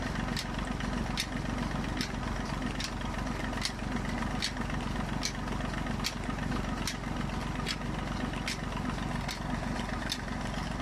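Tractor engine running steadily under load, driving a tubewell pump through its PTO shaft, with a sharp click a little more than once a second. Water pours from the outlet pipe into the tank.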